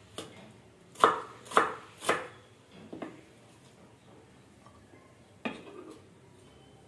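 Kitchen knife chopping an onion on a wooden cutting board. Three sharp strikes come about half a second apart in the first two seconds, then fainter single cuts at about three and five and a half seconds in.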